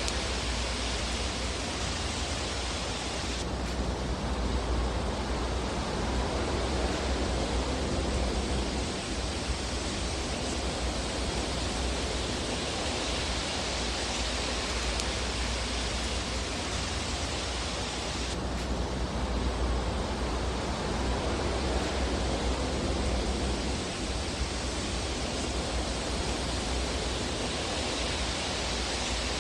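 Fire burning in a fireplace: a steady rushing hiss with a low rumble and no distinct crackles. It changes abruptly in tone twice, about three seconds in and again about eighteen seconds in.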